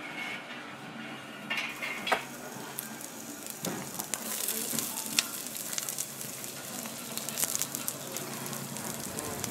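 Fire crackling and hissing inside a wood-fired bakery oven, a dense crackle that thickens about four seconds in, with a few sharp knocks before it.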